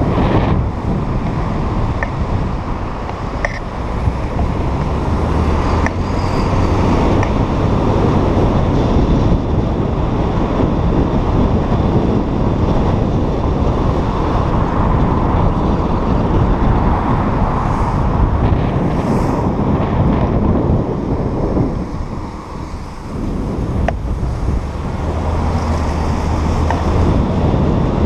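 Wind buffeting the microphone of a camera mounted on the bonnet of a moving car, mixed with steady road and tyre noise on wet asphalt. The rush eases briefly a little over twenty seconds in, then picks up again.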